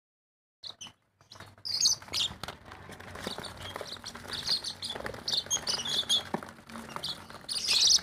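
A cage crowded with lovebirds chirping and chattering, many short, high calls overlapping. The calls start about half a second in.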